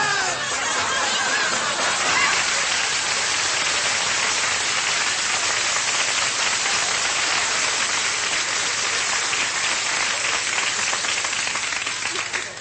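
Studio audience applauding for about twelve seconds, then dying away suddenly near the end, with the last notes of a vocal quartet fading out at the start.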